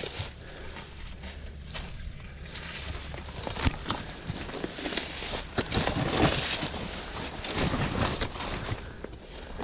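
Footsteps crunching over rough, stony ground on a hike up a hill, irregular and getting louder and busier through the middle before easing off near the end.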